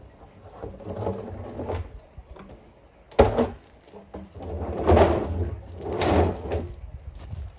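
Empty plastic drums being handled and shifted on gravel: a sharp hollow knock about three seconds in, then two longer stretches of scraping and gravel crunching as a drum is moved.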